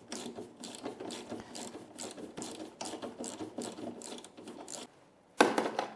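Hand tool working the 7 mm bolts on a Lambretta scooter's frame: a run of quick, uneven metallic clicks as the bolts are undone, then one louder clack near the end.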